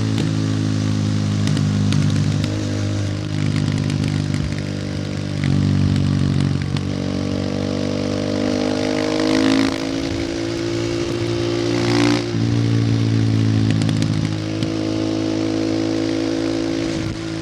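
Supermoto motorcycle exhaust, the engine running steadily under way. Its pitch climbs slowly through the middle and drops suddenly about twelve seconds in.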